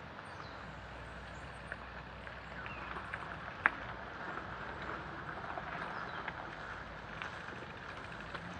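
Gravel bicycle rolling up and coming to a stop, with scattered light clicks from the bike and one sharper click a little past three and a half seconds. Quiet outdoor background with a few faint chirps.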